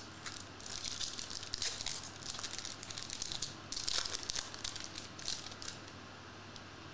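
Foil trading-card pack wrapper crinkling and tearing as it is opened by hand, in irregular bursts for about five seconds.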